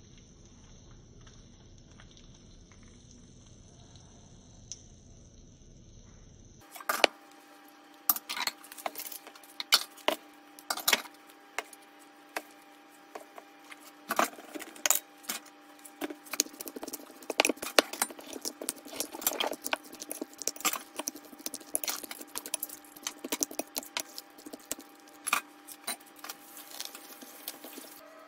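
Faint steady hiss for about the first six seconds. Then a utensil clinks and scrapes irregularly against a glass mixing bowl as raw chicken pieces are stirred with yogurt and spices, with many sharp clinks to the end.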